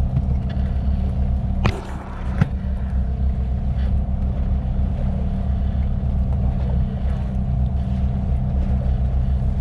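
Fishing boat's engine running steadily, a low hum, with two short knocks about two seconds in.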